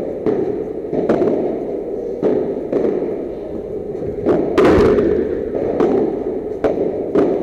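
Padel rally: solid padel rackets striking the ball and the ball bouncing, a sharp knock about every second, echoing in an indoor hall. About four and a half seconds in comes a louder, longer crash. Steady background noise runs underneath.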